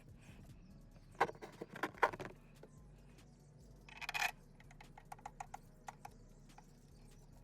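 Clinks and clicks of metal hand tools and fasteners being worked on an engine. There is a cluster of sharp knocks about a second in, a brief rattle near the middle, then a quick run of small clicks.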